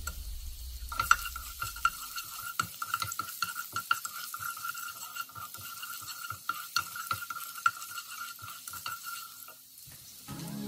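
Wooden spatula stirring julienned ginger and garlic in oil in a hot nonstick frying pan: quick, irregular clicks and scrapes against the pan over a light sizzle, with a thin steady high note alongside. It starts about a second in and stops near the end.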